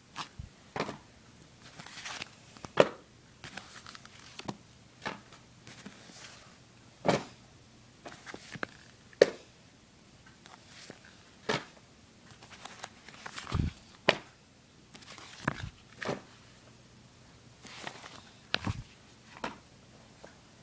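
Small paperback Archie comic digests being handled and shuffled: scattered taps, clicks and paper rustles, with a few soft low thumps in the second half.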